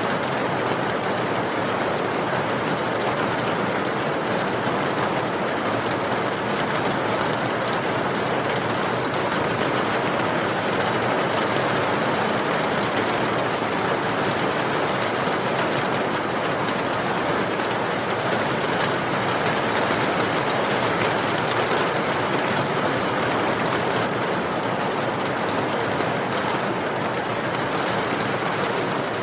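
Steady rain mixed with a wood fire crackling, a continuous even noise with faint scattered pops.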